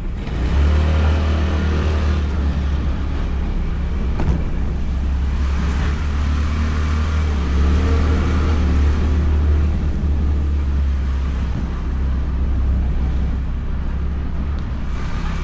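Honda Beat scooter on the move in road traffic: its engine running, with a loud, steady low rumble that grows louder about half a second in.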